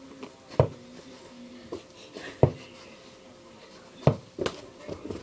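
Several sharp thuds of a mini basketball bouncing on the floor during play, coming at uneven gaps, two of them close together about four seconds in.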